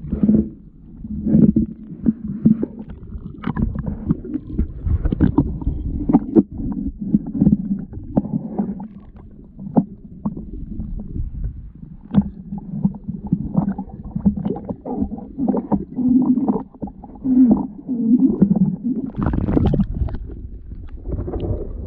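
Water sloshing and gurgling against a kayak hull, an uneven low rumble, with many scattered knocks and clicks.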